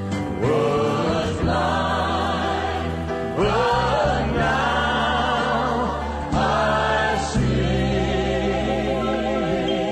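Gospel music: a choir singing long held notes with vibrato over sustained bass notes.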